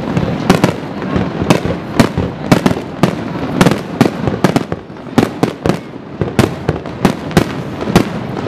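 Aerial fireworks display: shells bursting in a dense, irregular string of sharp bangs, about two a second, over a continuous background of noise.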